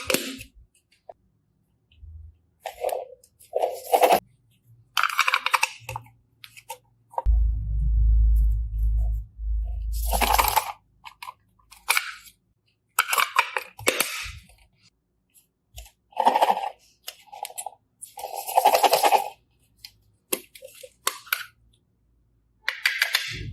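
Slime being squished and pressed: a run of short crackling, popping bursts with pauses between them. A low rumble runs for about three seconds in the middle.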